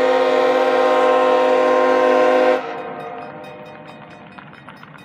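Diesel locomotive air horn sounding one long blast for a level crossing, a chord of several tones. It cuts off about two and a half seconds in and echoes away.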